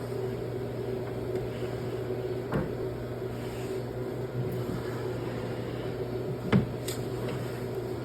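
A steady low mechanical hum, with two short knocks, one about two and a half seconds in and a louder one about six and a half seconds in.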